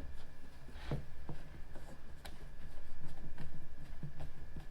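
Scattered light clicks and handling noise of screws being fastened to attach leather hinge straps to a plastic cooler, over a low steady hum.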